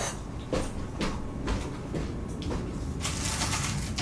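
Off-mic footsteps and rummaging: a few light knocks about half a second apart, then a rustle about three seconds in.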